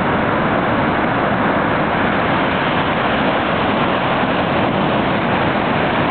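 Ocean surf breaking close to shore: a steady, loud rush of waves and washing foam.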